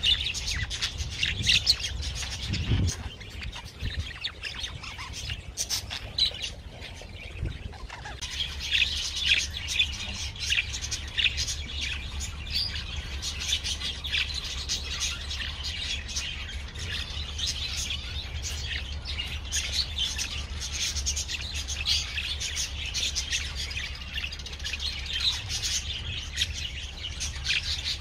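Small parrots chirping and twittering continuously, many short overlapping calls with no pause, over a low steady hum.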